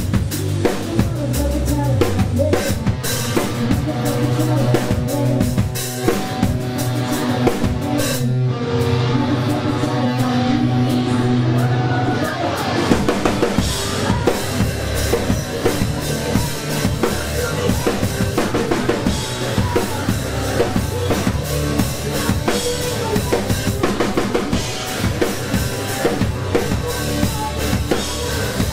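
Live rock band playing loud: drum kit, electric guitars and a singer's vocal. About eight seconds in the cymbals drop out for a few seconds over held notes, then the full band comes back in.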